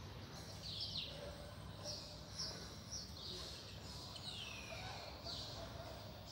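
Small birds chirping: a string of short high chirps and a few longer falling notes, about one every half second, over a steady low background rumble.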